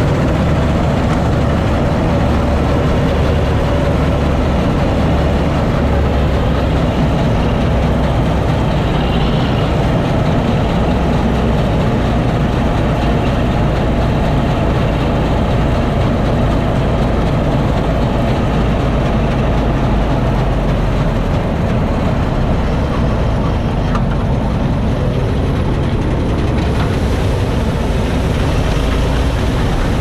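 Massey Ferguson 86 combine harvester at work, its engine and threshing machinery making a steady, loud drone heard from the driver's seat.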